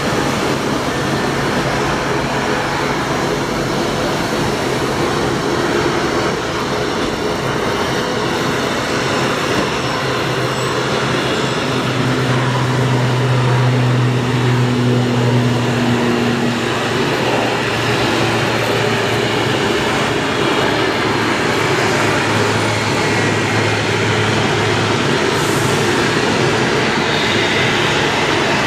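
ATR 72-500's twin turboprop engines at takeoff power, six-bladed propellers, giving a loud steady drone with a low propeller hum. The hum swells about halfway through as the aircraft rolls past, then the drone carries on as it climbs away.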